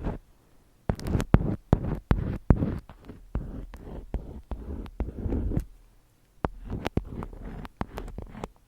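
Close-miked ASMR handling sounds: an irregular run of sharp taps and clicks with dull thuds, pausing briefly just after the start and again a little past the middle.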